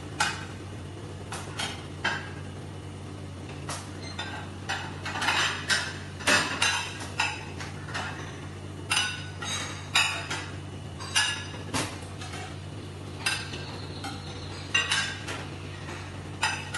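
Ceramic plates and crockery being handled and stacked: irregular clattering and clinks, sometimes several in quick succession, over a steady low hum.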